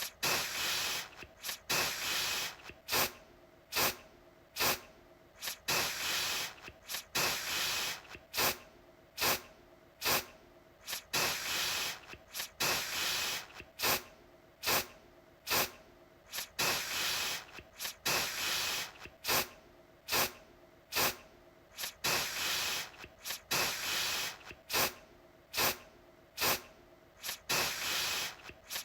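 Aerosol deodorant can spraying over and over: mostly quick short puffs, one to two a second, with some longer hissing sprays of up to about a second mixed in.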